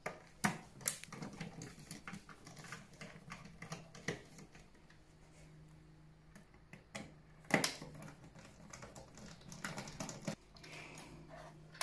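Irregular small clicks and taps of a screwdriver and loosened parts while screws are taken out of a PlayStation 4 Pro's casing, with a few sharper knocks near the start and one louder one past halfway.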